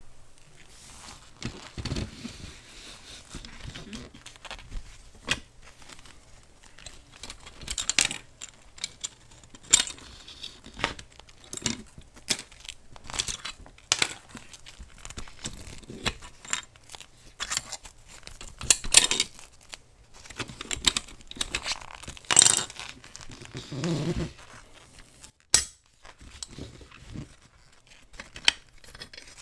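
Handling noise from a rusty diecast model car being turned over in gloved hands: irregular small clicks and taps as its hinged engine cover and doors are opened and closed and the metal body knocks on the tabletop, over a soft rustle of the fabric gloves, with a few sharper knocks along the way.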